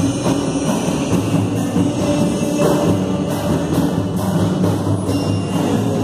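Live Brazilian gospel band in the pagode style playing a worship song: acoustic guitar and a small stringed instrument over hand percussion, a frame drum and a large hand-held drum, with voices singing into microphones.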